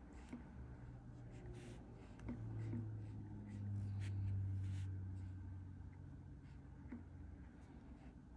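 Black brush-tip marker stroking on paper, a faint run of short scratchy strokes. Under it a low hum swells for a few seconds in the middle, then fades.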